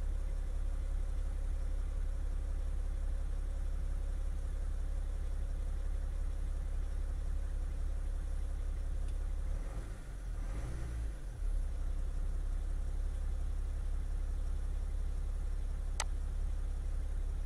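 BMW M57 straight-six diesel engine idling steadily, its sound shifting briefly about ten seconds in as revs are applied. A single sharp click near the end.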